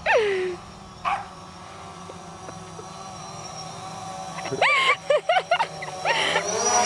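Small white bichon frise dog vocalising: a sharp falling yelp at the start, a short call a second later, then a quick run of high yappy barks and a wavering howl near the end. Under it runs the steady hum of a quadcopter drone's propellers, growing slowly louder.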